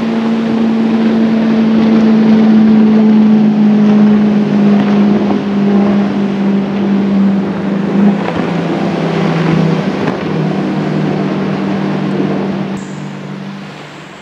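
Bass boat's outboard motor running at speed as the boat passes by. The engine's steady hum is loudest early, drops in pitch about halfway through, then fades near the end as the boat moves away.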